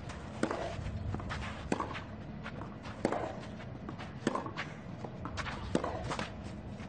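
Tennis rally on a clay court: five sharp racket-on-ball hits a little over a second apart, with lighter scuffs and steps of tennis shoes on the clay between them.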